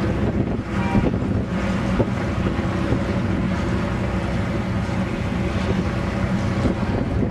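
Off-road desert race vehicle engine running steadily under load, with wind buffeting the microphone.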